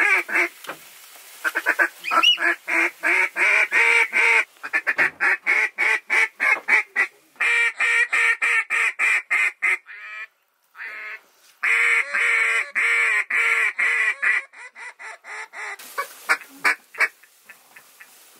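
Waterfowl calling: long rapid runs of short honks and clucks, several notes a second, broken by a couple of brief pauses and thinning out near the end.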